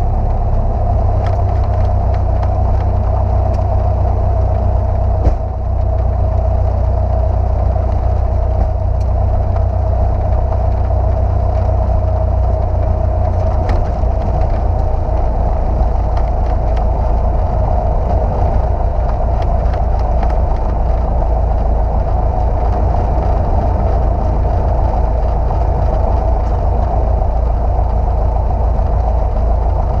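Single-engine light aircraft's piston engine running steadily, heard from inside the cockpit, with a single short knock about five seconds in.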